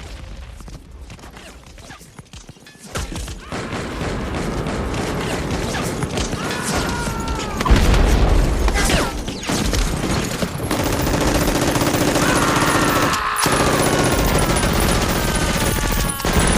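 Battle sound effects: rapid gunfire and explosions that grow louder about three seconds in, with a heavy blast near the middle and whistling tones that glide downward.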